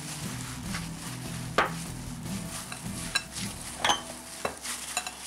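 Gloved hands mixing and kneading samosa dough in a small bowl, with a few sharp knocks and clinks against the bowl, the loudest about a second and a half in. Soft background music plays underneath.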